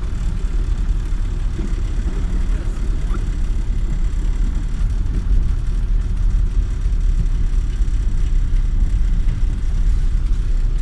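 Steady low rumble of a car's engine and road noise heard from inside the cabin while it drives through a flooded, rainy street.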